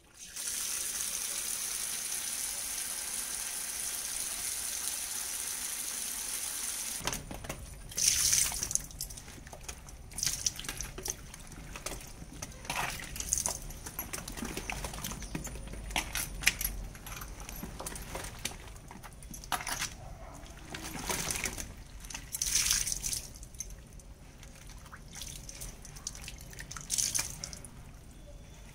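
Water running steadily into a plastic basin of wild mushrooms for about seven seconds, cutting off suddenly. Then hands churn and rub the soil-caked mushrooms in the water, with irregular splashing and sloshing.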